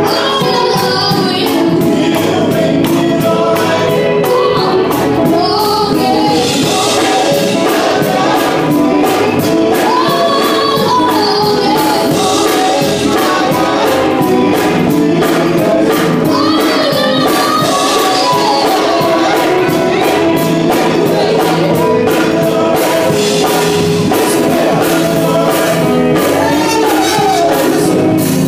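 Male gospel vocal group singing live with guitar accompaniment and a steady beat.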